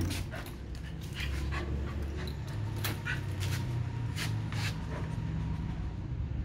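Dog panting, with irregular short sharp clicks and a low steady rumble underneath.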